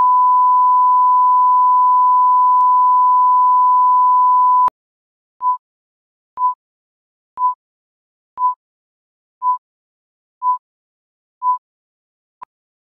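Broadcast 1 kHz line-up tone played over colour bars, steady and loud, cutting off sharply after about four and a half seconds. Then countdown beeps at the same pitch, seven short beeps once a second, and a single very short blip near the end.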